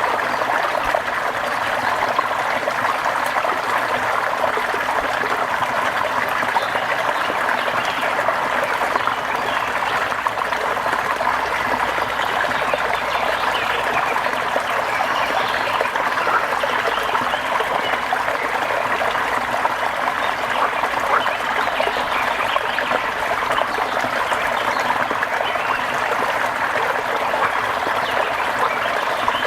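Steady rain falling, a dense, even patter of drops that holds at one level throughout.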